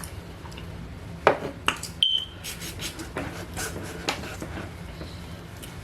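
Knife and fork clicking and scraping on a plate while cutting into a lamb loin chop, the knife catching on the bone. There are a few sharp clicks, with a brief high squeak about two seconds in.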